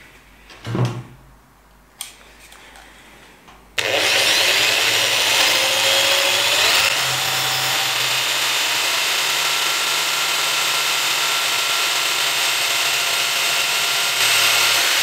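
A corded electric drill starts abruptly about four seconds in and runs at speed, spinning a wooden chopstick against a wood block to make friction heat. The sound is loud and continuous, a motor whine mixed with the rubbing of wood on wood. Its pitch wavers for the first few seconds and then holds steady.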